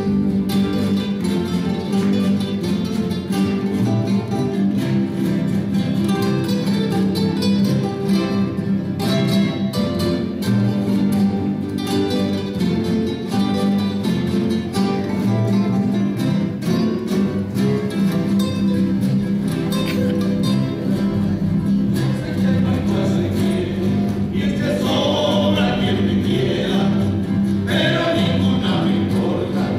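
An ensemble of acoustic guitars and other plucked string instruments playing a song together; men's voices join in singing about three-quarters of the way through.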